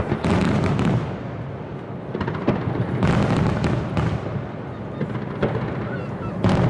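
Aerial firework shells bursting overhead: three heavy booms with a run of sharp crackling between them.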